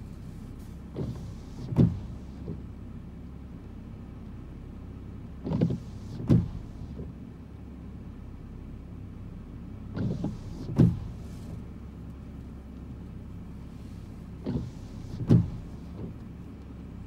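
Car windshield wipers on an intermittent setting, sweeping four times about every four and a half seconds, each sweep ending in a sharp thunk, over the steady low hum of the car.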